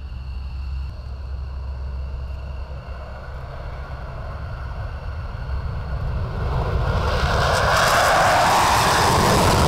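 Military aircraft engines during takeoff: a steady low rumble with a faint whine, then about seven seconds in the engine noise swells sharply to loud as the aircraft passes close, its pitch sliding down.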